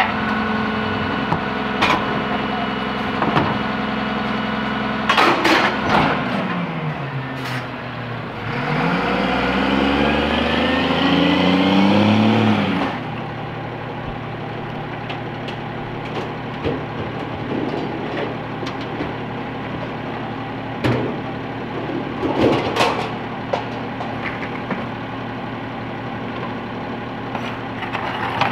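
Peterbilt 320 garbage truck's diesel engine idling with sharp metal bangs as a trash can is tipped into the McNeilus rear loader's hopper. The engine then revs in a long rising climb for several seconds. It cuts off abruptly to a steadier, more distant engine run with a few clanks.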